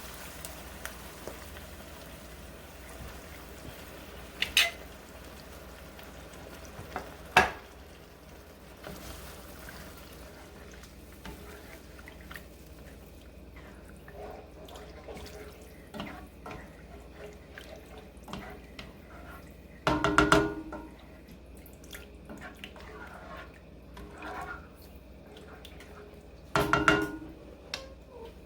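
Pork broth poured into a cooking pan and heating, with a soft steady liquid sound. A few sharp clicks and two louder clanks of a utensil against the pan come in the last third.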